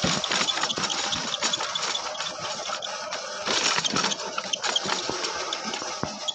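A small engine running steadily, with many rattling clicks over it.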